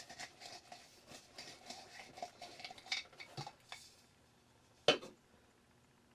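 Small hard clicks and rattles of plastic and glass as a C7 bulb is handled and taken out of a socket on a vintage Noma bell light set. These go on for about four seconds, and there is one louder knock about five seconds in.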